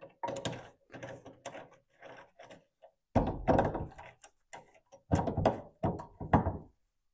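Steel bar stock knocking into the jaws of a lathe's three-jaw chuck as it is set in and clamped with the chuck key: a run of metal clunks and rattles with short ringing. The heaviest clunks come about three seconds in and again between five and six and a half seconds.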